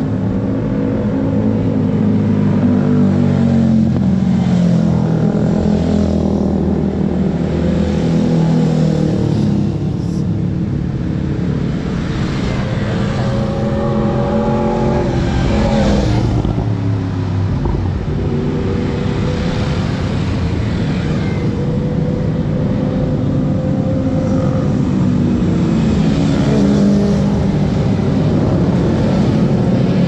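Kawasaki Ninja ZX25R's 250 cc inline-four running through an aftermarket Akrapovic exhaust while ridden. The engine note rises and falls again and again as it accelerates and eases off, with a sharper climb and drop about halfway through.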